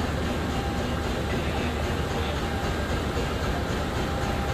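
A KAI CC201 diesel-electric locomotive's diesel engine running steadily as the locomotive rolls slowly forward, a continuous deep low rumble.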